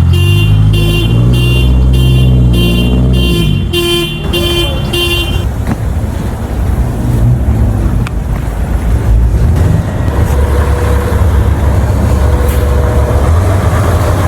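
An alarm beeps evenly about twice a second over a low vehicle rumble and stops about five seconds in. After that, steady engine and traffic rumble continues.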